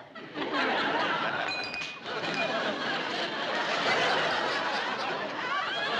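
Studio audience laughing loudly at a sitcom punchline, a long laugh that dips briefly about two seconds in and then swells again.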